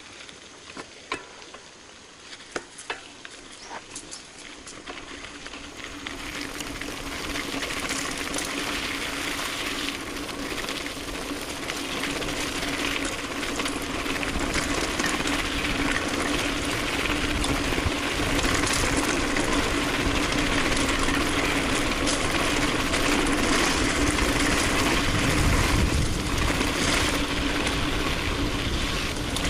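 Mountain bike riding: tyre and wind noise growing steadily louder as it gathers speed, with a steady low hum from about six seconds in. A few sharp ticks sound in the first few seconds.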